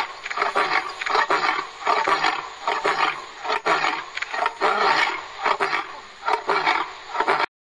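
Male African lion calling in a run of short repeated roars, about two a second, that cut off suddenly just before the end.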